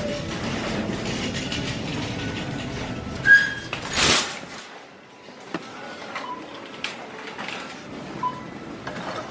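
A wire shopping cart pulled free from a row of nested carts: a sharp metal clank a little over three seconds in and a louder rattle about a second later. The cart then rolls with a low rattle, broken by a few small clicks and short squeaks.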